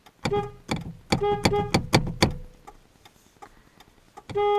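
A car horn honks in a quick burst of short beeps about a second in, then gives a longer honk near the end, over the steady clicking of the hazard-light flasher.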